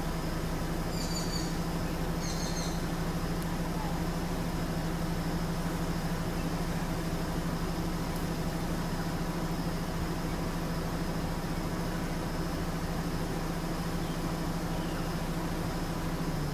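A vehicle engine running steadily with a constant low hum, under a faint high steady whine, with two short high chirps about one and two seconds in.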